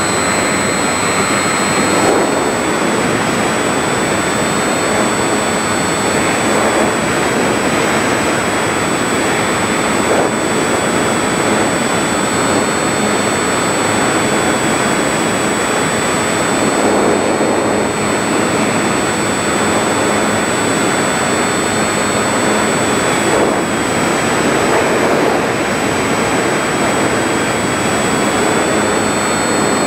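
Electric motor and spinning propeller of a Volantex Phoenix 1600 RC motor glider under power, heard from an onboard camera: a steady high whine that wavers slightly in pitch over a loud, even rush of propeller and wind noise.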